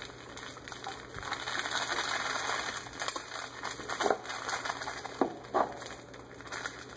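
Snack package rustling as it is handled and opened, with three short squeaks in its second half.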